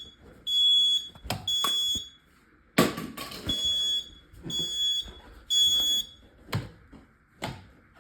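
Household smoke alarm sounding under test in the temporal-three pattern: three high-pitched half-second beeps a second apart, a pause, then three more, stopping about six seconds in. The alarm is working. A few sharp knocks come between and after the beeps.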